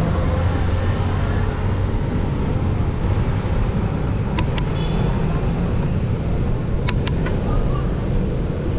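Road traffic noise heard from a moving bicycle: a steady low rumble, with a pair of sharp clicks about four and a half seconds in and three more about seven seconds in.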